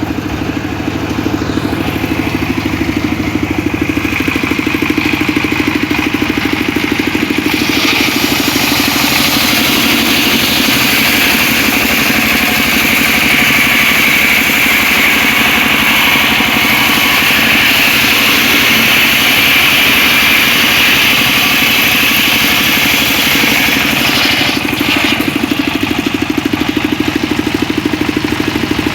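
Homemade engine-driven circular saw running steadily, its blade cutting through mahogany timber from about a quarter of the way in until near the end with a loud, bright, hissing whine over the engine drone.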